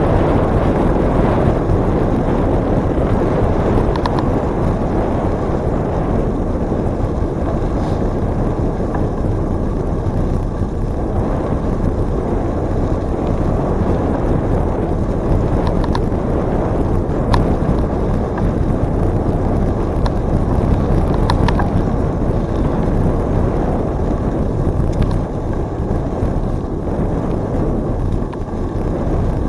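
Steady, loud wind rumble on the microphone of a moving bicycle, with a few faint clicks now and then.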